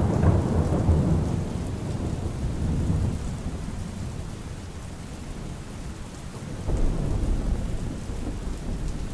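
Steady rain with thunder rumbling: a low rumble at the start dies away over about three seconds, and another rumble comes in about seven seconds in.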